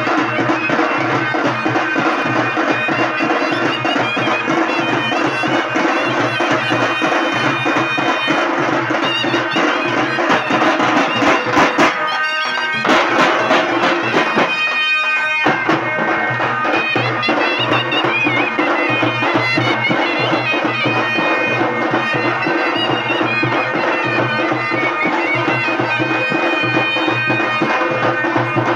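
Street band of large frame drums and a bass drum beaten with sticks, with trumpets playing a loud folk tune over the drumming. About halfway through the tune drops out for a few seconds, leaving a fast, even drum roll, then the horns come back in.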